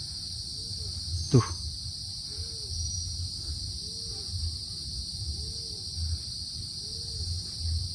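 Steady high-pitched insect chorus, with a low call that rises and falls, repeating about every second and a half. A single sharp falling swish comes about a second and a half in.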